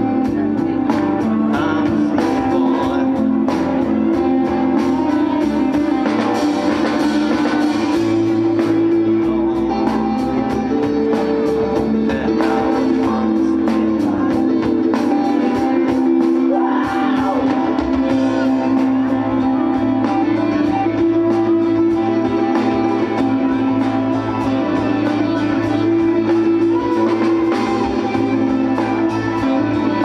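Live band music: a strummed acoustic guitar and an electric bass guitar play a steady rhythm, with a man singing at times.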